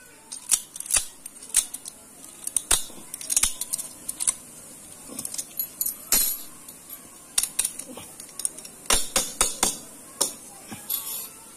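Metal padlock being handled, clinking and rattling in a series of sharp, irregular metallic clicks and jingles.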